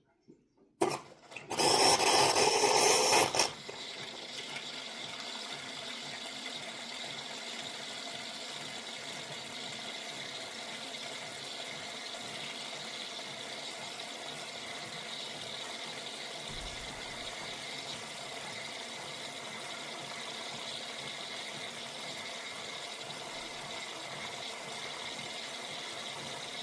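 De'Longhi La Specialista Maestro espresso machine running: a click, a loud hiss for about two seconds, then a steady, quieter whirring hiss.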